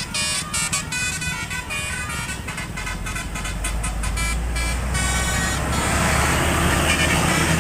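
Basuri multi-tone telolet bus horn playing a fast tune of quickly stepping notes. A low engine rumble swells under it, and a rushing noise takes over in the last couple of seconds as the notes die away.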